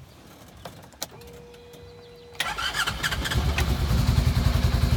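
Polaris RZR 900's twin-cylinder engine being started: a click and a short steady whine as the key is switched on, then the starter cranks about two and a half seconds in and the engine catches within a second and settles into a steady, pulsing idle. It now starts after burnt wiring was repaired.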